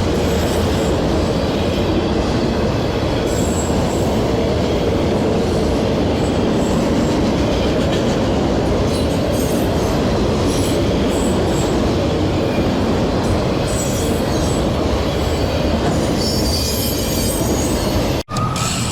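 Freight train rolling past at a good pace: a steady, loud rumble and clatter of cars and wheels on the rails, with faint high-pitched wheel squeals near the end.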